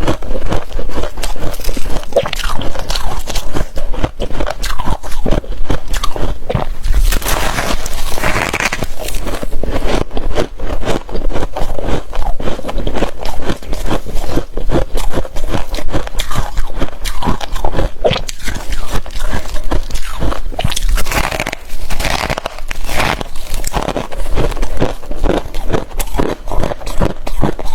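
Thick freezer frost being crunched and scraped close to the microphone: a loud, unbroken run of crisp crackling crunches.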